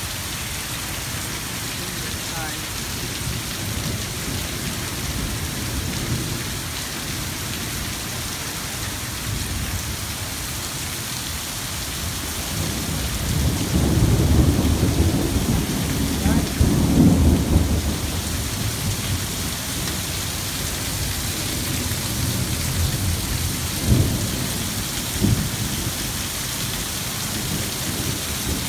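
Torrential rain pouring steadily in a thunderstorm. About halfway through, a rolling rumble of thunder swells for several seconds, and two short sharp cracks come near the end.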